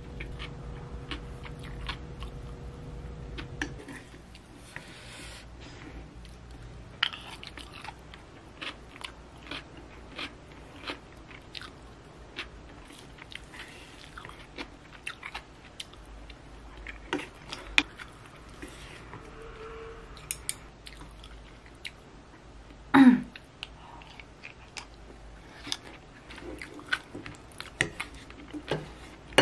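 Close-up eating sounds: chewing rice with crunchy cucumber, and a spoon clicking and scraping against a ceramic bowl, with one louder scrape about three-quarters of the way through. A low hum stops about four seconds in.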